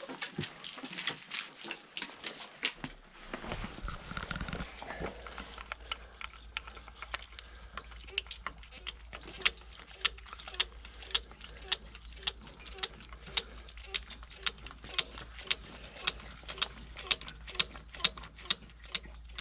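Diesel fuel dripping from a fitting on an old tractor's injection pump onto a dry corn cob, a steady run of drops at about two or three a second. Near the start, quick clicks of dry kernels being stripped off the cob.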